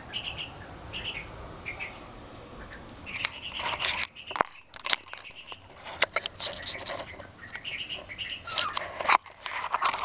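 Baby birds in a nest chirping in many short, high notes. Over them, loud rustling and sharp knocks come and go from leaves and branches brushing against the camera.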